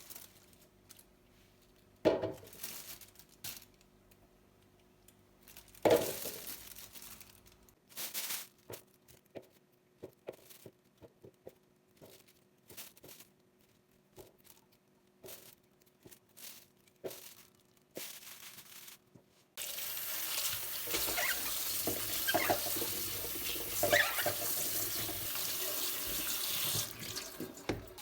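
Scattered knocks and clicks of kitchen items being handled, then a kitchen tap turned on about two-thirds of the way in, water running steadily into the sink for several seconds.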